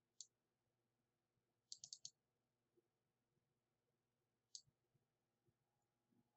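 Faint computer mouse clicks over near silence: a single click, three quick clicks about two seconds in, and one more about four and a half seconds in.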